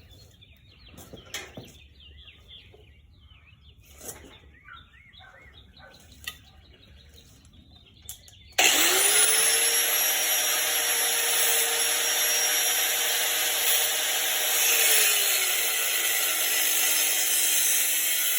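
Faint birdsong and a few light taps, then about halfway through an electric power tool starts abruptly and spins up to a steady whine. Its pitch drops near the end as it takes load cutting through the motorcycle's rear frame tubing.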